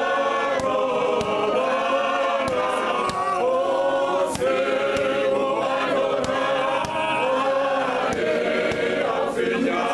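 Male choir singing in close harmony without instruments, with a few sharp hand claps among the voices.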